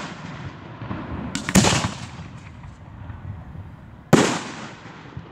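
Aerial fireworks shells bursting overhead: two loud booms, the first about a second and a half in and the second about four seconds in. Each fades out over a second or so.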